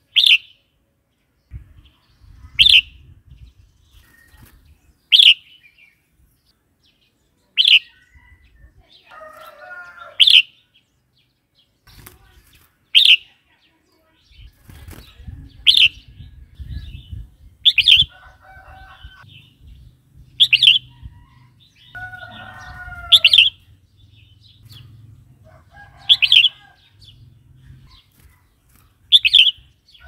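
Red-whiskered bulbul calling: a loud, sharp note repeated about every two and a half seconds, with quieter warbling phrases between some of them. A low rumble runs underneath from about halfway through.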